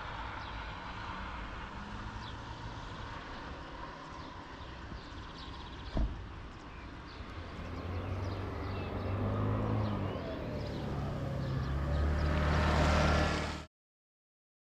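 Wind on the microphone over outdoor ambience, with a single sharp click about six seconds in. From about eight seconds a road vehicle's engine grows steadily louder as it approaches, with tyre hiss, before the sound cuts off abruptly.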